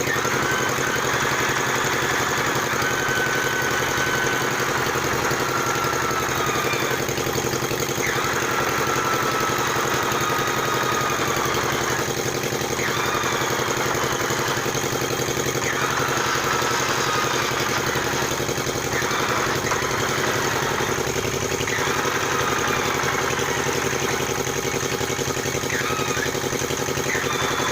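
An engine idling steadily, running again after a repair.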